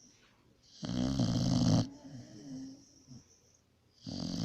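Pit bull snoring in its sleep: two loud snores, one about a second in lasting about a second and another starting near the end, with soft breathing between them.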